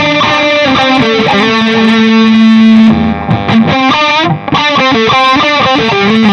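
Distorted electric guitar lead played through a NUX MG-400 multi-effects unit on a British-style lead amp preset. A few notes lead into one long held note, then after a brief dip comes a quicker run of notes. The delay is on at first and switched off before the faster run.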